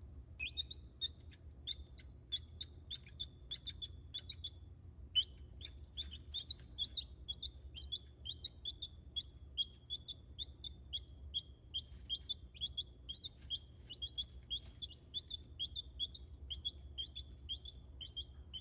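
Newly hatched chicks peeping: a steady string of short, high chirps, each sliding down in pitch, about two to three a second, with a brief break about five seconds in.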